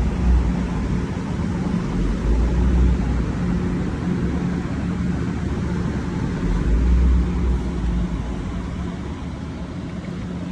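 Machinery of a PVC gasket welding machine running with a steady hum and low rumble; the rumble swells at the start and again about seven seconds in.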